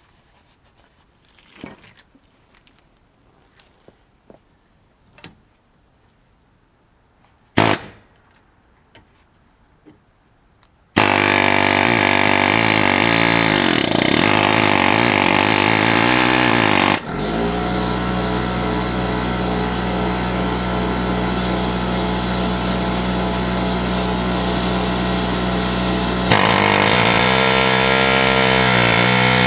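A few light knocks and clicks, then about eleven seconds in a power impact chisel starts hammering continuously and very noisily on a rusted-on wheel hub to drive it loose. Its pitch wavers at times, and the sound eases slightly after about six seconds and grows louder again near the end.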